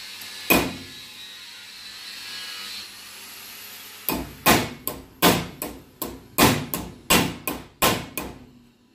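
Hammer blows on a small steel sheet-metal part clamped in a bench vise: one blow about half a second in, then about a dozen steady blows, two or three a second, from about four seconds in. The blows are peening a conical seat into the metal so a screw head will sit flush.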